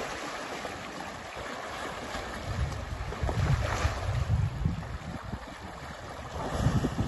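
Lake water splashing and sloshing as African elephants wade and dip in it, with wind buffeting the microphone in low gusts in the middle and near the end.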